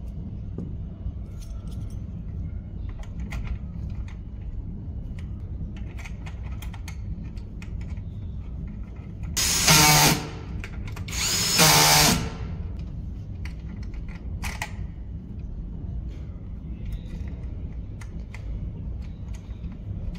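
Cordless drill-driver spinning a screw into the metal mounting plate in two short bursts, each about a second long, a moment apart, with a whine from its motor. Light clicks and taps of small parts being handled come before and after.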